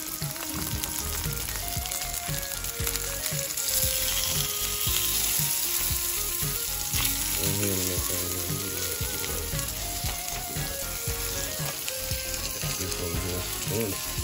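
Breakfast sausage patties frying in hot grease in a nonstick skillet: a steady sizzle that swells louder for a few seconds about four seconds in.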